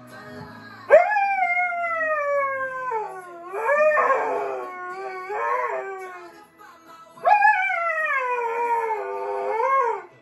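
Alaskan malamute howling along to a pop song: two long howls, each starting high and sliding slowly down, about a second in and again about seven seconds in, with shorter, rougher cries between them.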